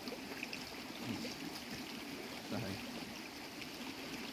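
Faint, steady trickle of a shallow stream running over stones.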